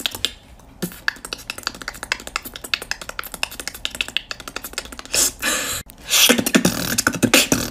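Beatboxing: a quick run of light, sharp clicks like typing on a phone keyboard, then louder hissing beatbox sounds about five seconds in and again near the end.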